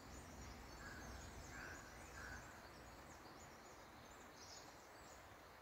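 Faint outdoor ambience: a low steady background noise with small bird chirps, three short calls in the first two seconds or so and scattered high chirps through the rest.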